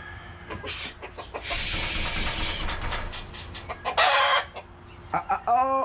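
Backyard chickens clucking, with a loud harsh squawk about four seconds in and a quick run of pitched calls near the end.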